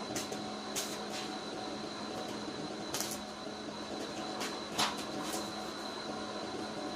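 A steady hum with a faint high whine, and a handful of sharp light clicks and knocks scattered through it, the loudest a little before five seconds in.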